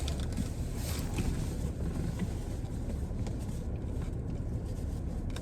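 Steady low rumble of a car heard from inside its cabin, with no other clear event.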